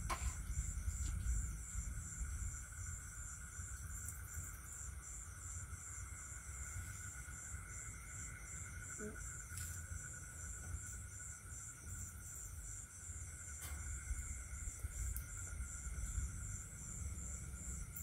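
Insects chirping in a high, rapidly pulsing trill that keeps going steadily, over a low rumble.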